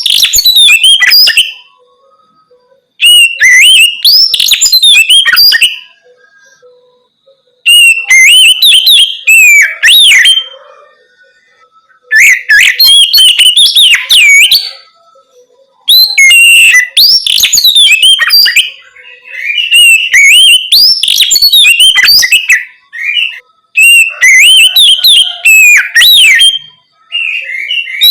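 Oriental magpie-robin (kacer) singing loudly in its open, full-voiced 'ngeplong' style: bursts of rapid whistled and warbled notes a few seconds long, broken by pauses of a second or two.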